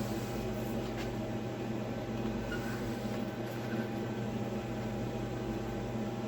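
Steady mechanical hum with a faint hiss, like a fan or appliance running in a small room, and a faint click about a second in.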